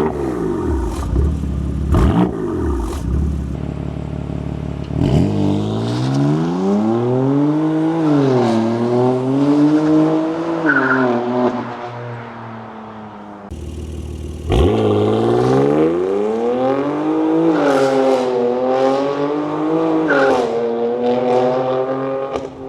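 BMW F82 M4's twin-turbo inline-six revved through its exhaust: a few quick, sharp blips first, then longer rises and falls in pitch, dropping off briefly about thirteen seconds in before the revving starts again.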